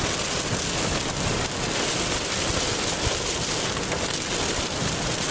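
Heavy rain making a steady, dense hiss.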